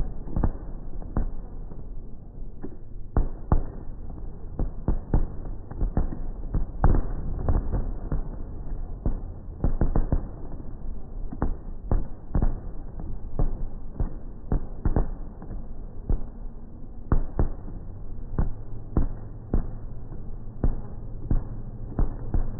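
Aerial fireworks shells bursting in quick succession: a dense string of sharp bangs over a steady low rumble.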